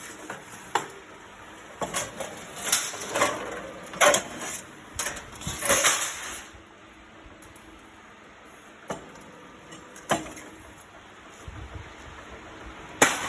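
Hand steel cutter cutting into the lid of a steel drum: a run of short, sharp metallic cuts and clinks over the first six seconds, then a few isolated clicks.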